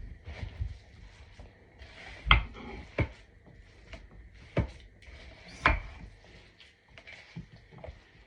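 Kitchen handling noises: a few sharp knocks and clatters of utensils or dishes on a hard surface, about four loud ones spaced a second or more apart, with light rubbing and shuffling between them.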